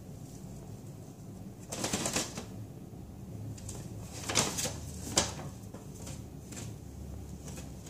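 Brown paper grocery bag rustling and crinkling in a few short bursts as a rabbit shifts and turns around inside it, the sharpest about five seconds in.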